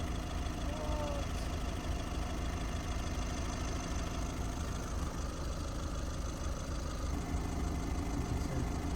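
Ford Transit diesel engine idling steadily, running with dashboard warnings up for an AdBlue system malfunction.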